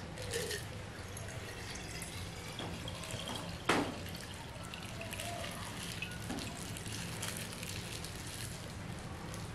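Iced tea being poured from a plastic bag into a glass jar, trickling and dripping as the bag is squeezed empty. One sharp knock about three and a half seconds in.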